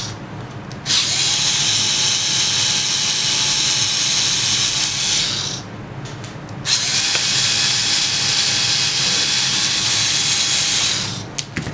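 Cordless electric screwdriver running in two long spells of about four to five seconds each, a steady motor whine, backing out the screws of a 12V water pump motor's end cap.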